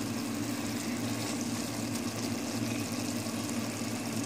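Minced beef and chopped tomatoes frying on a high flame in an aluminium pot, a steady sizzle over a constant low hum.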